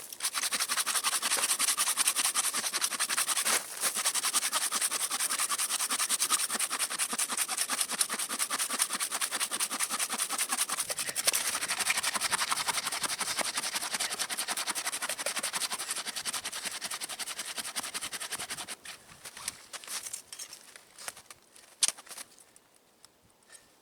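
Hand saw cutting through a dry, dead tree trunk in steady back-and-forth rasping strokes. The sawing stops about 19 seconds in, leaving a few light knocks and rustles.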